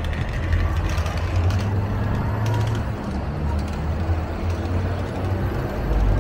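City street traffic with a heavy vehicle's engine, a bus or truck, running close by as a steady low rumble.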